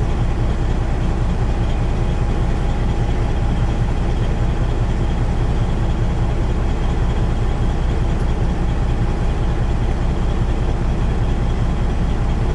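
Peterbilt semi truck's diesel engine idling steadily, heard from inside the cab.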